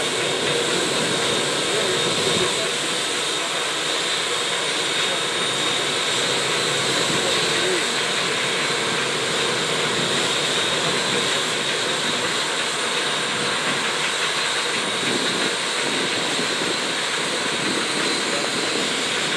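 Steady jet-turbine whine with a high, even tone from an RAF Lockheed L-1011 TriStar as a tug tows it slowly along the taxiway.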